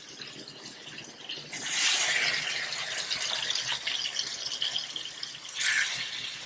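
Chicken sizzling in hot oil on a griddle hot plate, a steady hiss that starts about a second and a half in and surges briefly again near the end.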